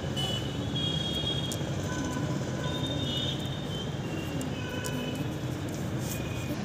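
Steady low rumble of town traffic, with several short high chirps and a faint tone that wavers up and down a few times.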